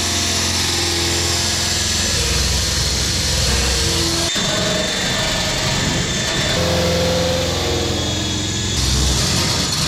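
Dremel rotary tool running under load, grinding the burrs off lightening holes in an aluminum wing spar with an abrasive ball; the sound changes abruptly twice, about four and nine seconds in.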